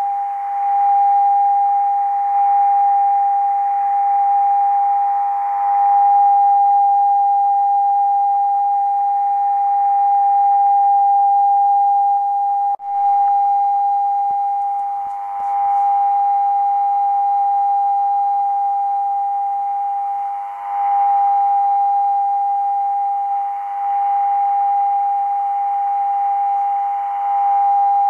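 RWM time-signal station's unmodulated carrier received on a Degen DE1103 shortwave radio, heard as one steady whistle-like tone over band hiss. The level swells and dips every few seconds with shortwave fading, with a sharp momentary dropout about 13 seconds in.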